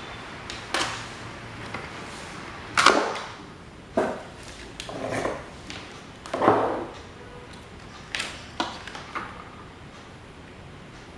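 A run of knocks and clunks with short scraping sounds, as parts and tools are handled and set down: about eight in all, the loudest about three seconds in and again past six seconds.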